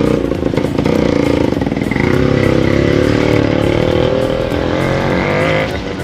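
A motorcycle engine running close by, its pitch shifting slowly up and down. It drops off a little near the end.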